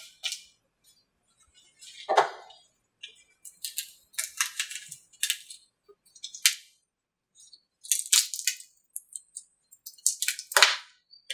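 Newly laid-up composite male mold crackling and snapping in irregular bursts as it is flexed and pried away from the female mold, the loudest crack near the end: the sound of the laminate breaking free at its release surface, a sign that the mold is releasing well.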